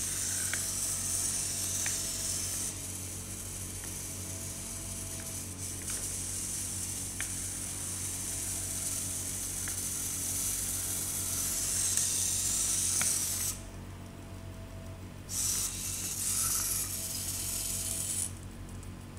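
Small DC gear motors of a two-wheeled robot car whirring as it drives and turns. The motors cut out for a second or two twice, about 13 seconds in and near the end, as the robot stops.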